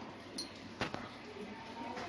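A couple of faint, short clicks and a light clink over quiet room sound, the sharpest just under a second in, with faint distant voices near the end.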